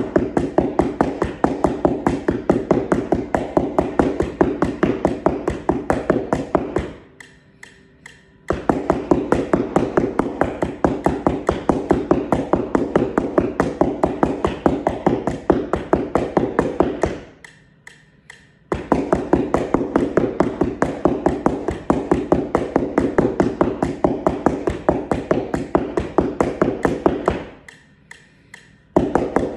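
Marimba mallets striking a cardboard practice keyboard in fast, even taps. The taps come in runs of about ten seconds, with short pauses between the runs.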